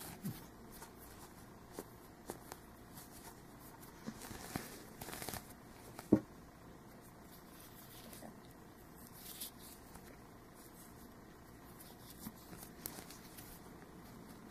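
Faint rustling and scattered light taps of hands handling a crocheted yarn hat and working yarn through it with a needle; the sharpest tap comes about six seconds in.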